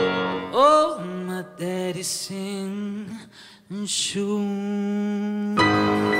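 Live band music breaks off and a male voice sings alone, with held, bending notes. About five and a half seconds in, the full band comes back in.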